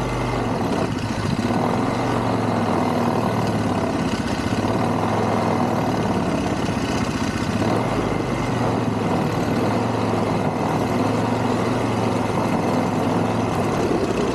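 ATV (quad) engine running at a steady pace while riding through snow, with an even engine note that does not rev up or die down.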